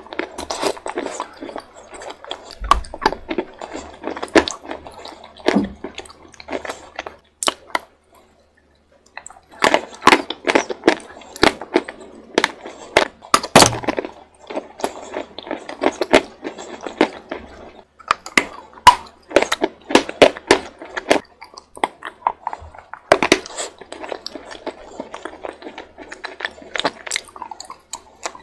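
Close-up crunching and chewing of hard chunks of edible chalk and clay, many sharp irregular cracks as the pieces are bitten and ground between the teeth, with a brief pause of about a second under a third of the way in.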